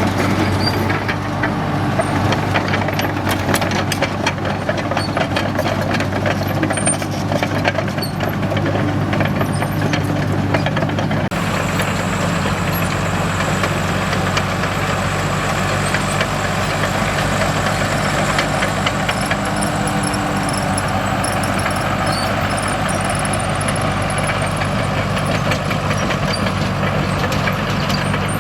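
Komatsu D37EX bulldozer's diesel engine running steadily, with many short metallic clicks and clanks over the drone. The sound shifts abruptly about eleven seconds in.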